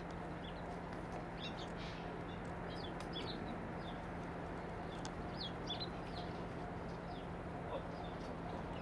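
Young chickens peeping: short, high chirps in irregular clusters.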